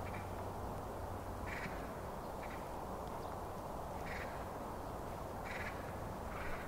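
Short, harsh bird calls, about six of them, each on its own and roughly a second or so apart, over a steady low background rumble.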